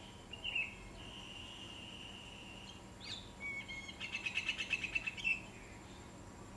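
A songbird singing: a long steady whistled note, then near the end a fast trill of repeated high notes, about ten a second.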